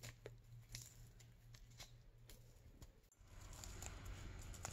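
Faint crackling ticks of crisp cooked bacon being torn into small pieces by hand over a mixing bowl, a few sharp snaps scattered over about three seconds. After that only a faint steady hiss remains.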